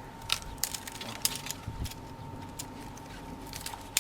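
Garden pruning shears handled, giving a handful of short, sharp metal clicks at irregular intervals.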